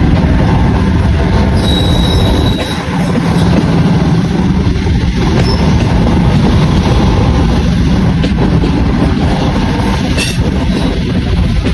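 Train running on the track close by, a loud steady rumble of wheels on rail with a low hum under it and a brief high wheel squeal about two seconds in.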